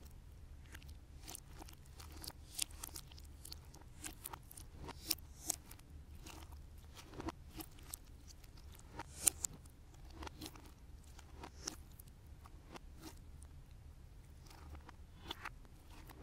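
Clear slime marbled with blue slime being squished and pressed flat by hand, giving irregular sticky pops and crackles of varying loudness over a faint low hum.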